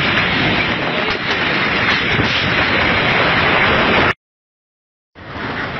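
Loud, steady rushing roar of ground, trees and debris on the move during the earthquake. The sound cuts out completely for about a second near the end, then returns.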